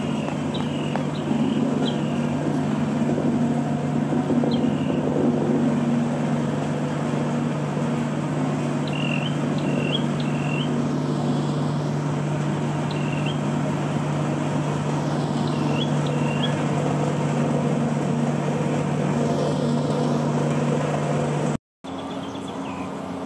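Diesel engine of a heavy road-construction machine running steadily at close range, with short high chirps now and then. Near the end the sound cuts out briefly and comes back with a different, higher steady engine note.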